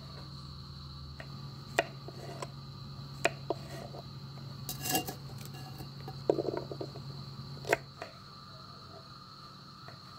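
Scattered light clinks and knocks of kitchenware being handled, about half a dozen, with a short scraping rustle near the middle, over a steady low hum that stops about eight seconds in.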